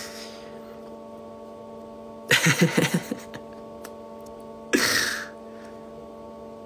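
A steady electronic hum made of several held tones, broken twice by a man's brief vocal sounds: a short one about two seconds in and a breathy one about five seconds in.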